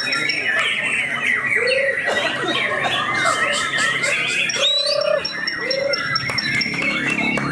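Many caged songbirds singing at once, white-rumped shamas among them: a dense tangle of overlapping whistles, trills and fast chatter, with a few short low notes now and then.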